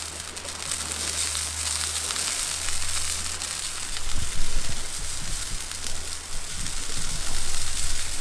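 Hot oil in a cast iron skillet on a portable gas stove, sizzling and crackling as raindrops land in it, with a steady low rumble underneath.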